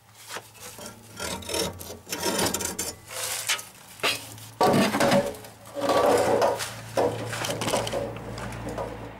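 Old rusted rear muffler of a 1996 Opel Corsa B being wrenched off its oiled rubber exhaust hangers. Irregular scraping and rubbing of metal and rubber, with a few knocks, louder in the second half.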